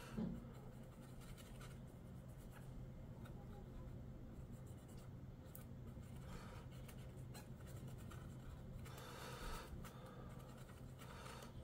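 Faint scraping and rubbing in a few short passes, as old thermal paste is worked off a laptop's heatsink and chip, over a low steady hum.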